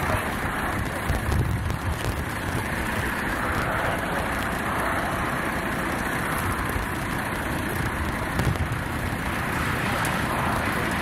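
Steady rushing noise of traffic passing on a motorway, with a low rumble underneath.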